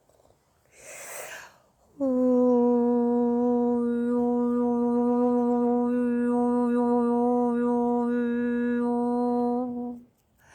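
A woman's voice toning: an audible in-breath, then one long, steady note held for about eight seconds that stops abruptly near the end.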